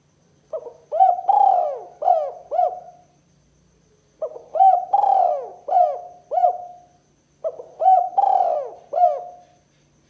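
Spotted dove cooing: three phrases, each a short note followed by a longer note and two or three shorter arched notes, with a pause of about a second between phrases.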